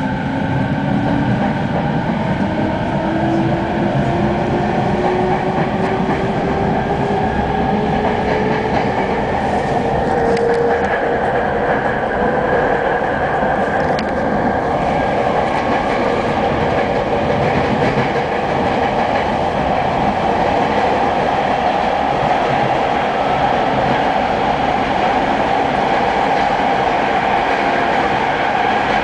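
JR East 209 series electric train running, heard from inside motor car MoHa 209-2152. The traction motor whine rises in pitch through roughly the first half as the train gathers speed, then holds steady as it runs on, over the rumble of the wheels and the clack of rail joints.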